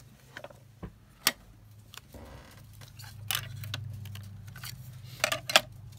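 Clicks and clacks of a thin metal cutting die and cutting plates being handled and set down on a craft mat. The sharpest are about a second in and again near the end. A low steady hum runs underneath and grows louder from about two seconds in.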